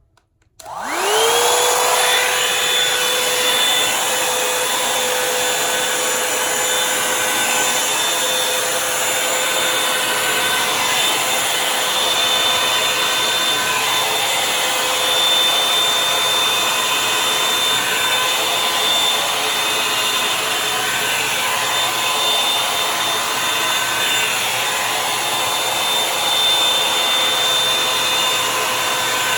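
Revlon One Step Volumizer hot-air brush dryer switched on: its motor spins up with a rising whine about half a second in, then runs steadily with a constant whine over a rush of air.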